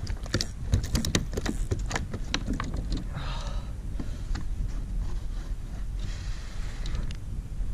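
Quick run of clicks and knocks on a plastic sit-on-top kayak's hull as a freshly landed redfin flaps in the foot well, over the first two to three seconds, then two short swishing sounds.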